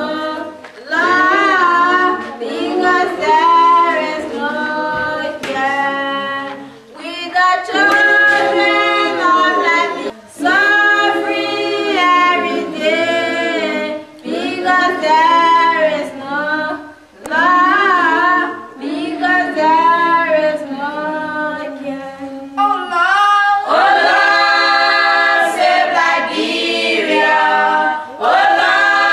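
A girl singing solo a cappella in short phrases with brief pauses between them, with a group of children's voices joining in near the end.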